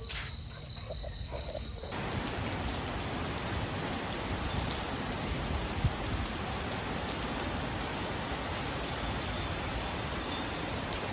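Insects trilling in steady high tones for about two seconds, then an abrupt switch to a steady, dense hiss of rain that carries on.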